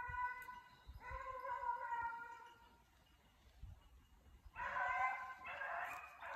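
Hunting hound baying in long, drawn-out howling calls, the voice a hound gives while trailing a hare: one long call about a second in, then a rougher run of calls near the end.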